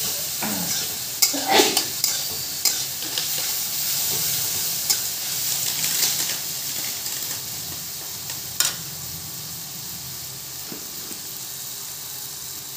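Sliced green capsicum sizzling in an iron kadai while a metal spatula stirs and scrapes through it, with sharp clinks of the spatula against the pan. The stirring stops about two-thirds of the way through and the sizzle carries on more quietly.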